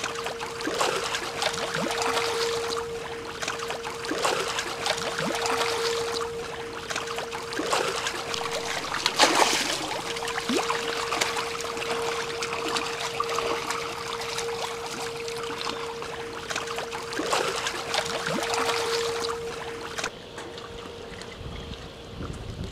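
Water splashing and churning as a dense crowd of fish thrashes at the surface of a net pen, over a steady motor hum. The splashing dies down about 20 seconds in.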